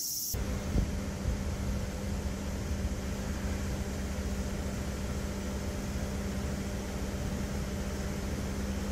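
Steady mechanical hum over an even background of street noise, with one brief click about a second in. Crickets chirping are cut off a moment into it.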